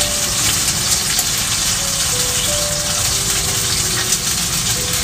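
Slices of fatty pork sizzling in a frying pan on a cassette gas stove as they are stirred with chopsticks: a steady hiss with fine crackle as the fat renders out.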